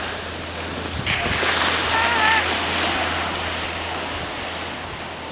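Rushing wind on the microphone mixed with skis sliding over snow while skiing downhill, swelling about a second in and easing off towards the end.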